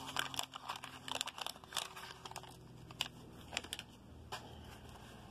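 Plastic wrapper of a baseball card rack pack crinkling and tearing as it is pulled open by hand, a quick run of crackles that dies down after about three and a half seconds into quieter handling of the cards.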